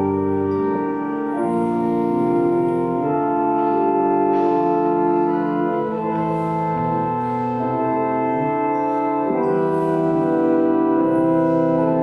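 Church organ playing slow offertory music: sustained chords that change every second or two.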